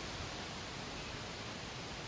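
Wind moving through trees and rustling dry autumn leaves, an even, unbroken hiss.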